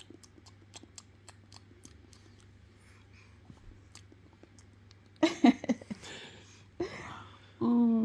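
Mouth sounds of a mother pretending to nibble a baby's toes: faint lip smacks and clicks, two or three a second, then louder smacking and breathy bursts about five seconds in. A long hummed voice starts near the end.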